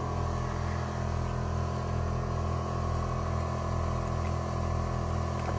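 A steady machine hum, made of several even tones over a low drone, with a slow regular pulse about once a second.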